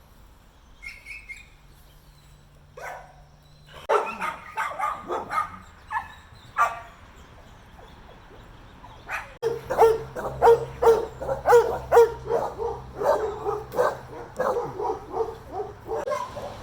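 Dogs barking: a few scattered barks and yips, then rapid, continuous barking from about halfway through, two to three barks a second.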